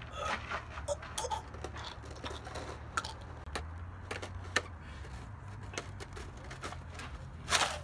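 Scattered small clicks and crunches of gravel under a body shifting on the ground, over a low steady hum. A brief rush of noise comes near the end.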